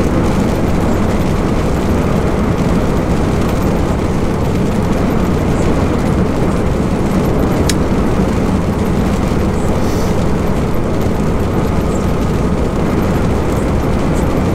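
Steady in-cab drone of a MAN TGX semi-truck cruising on the motorway: engine, tyre and wind noise, mostly low-pitched, with one faint click about eight seconds in.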